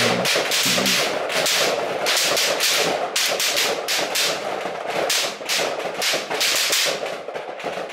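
Rifle fire from many shooters along a firing line: rapid, overlapping shots, several a second.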